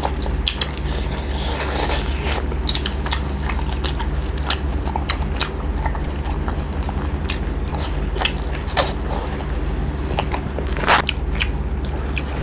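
Two people eating pork curry and rice by hand close to the microphone, chewing with wet mouth smacks and clicks that come irregularly, several a second, over a steady low hum.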